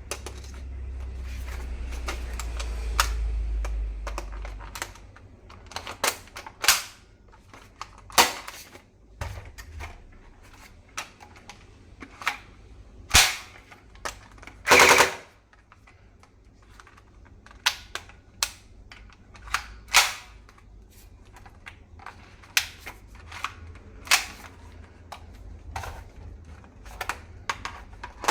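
Toy rifle being worked by hand: sharp plastic clacks and snaps of its mechanism at irregular intervals, with one longer rattle about halfway through. A low rumble of handling noise runs under the first few seconds.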